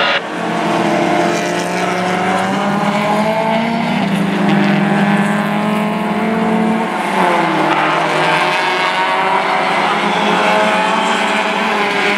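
Several race cars' engines running hard down a straight. Their overlapping notes rise and fall as the cars pass.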